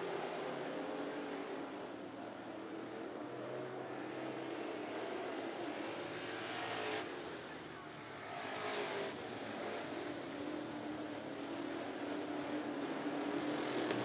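Classic-class dirt track race cars' engines running at speed around the oval in a steady drone, with louder swells as cars pass closer about seven and nine seconds in and again near the end.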